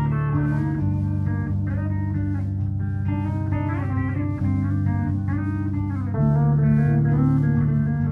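Electric guitar playing a melody of bent, sliding notes over sustained low notes that change every few seconds.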